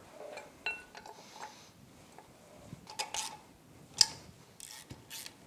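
Socket wrench turning the bolts of an outboard lower unit's prop shaft housing: scattered metallic clicks and clinks, with one short ringing clink near the start, the sharpest click about four seconds in and a quick run of clicks near the end.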